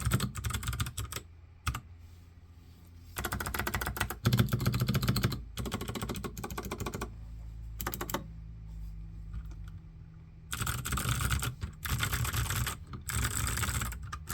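Typing on a Royal Kludge RK61 mechanical keyboard with clicky Kailh Box White switches, in several fast runs of crisp clicking keystrokes separated by short pauses.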